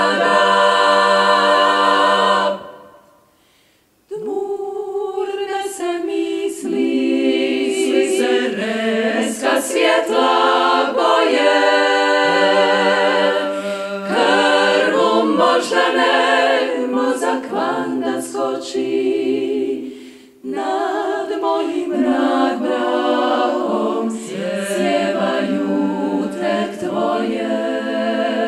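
Women's klapa singing a cappella in close multi-part harmony. A held chord breaks off about two and a half seconds in, a second and a half of near silence follows, then the voices come back in and carry on, with another brief break about two-thirds of the way through.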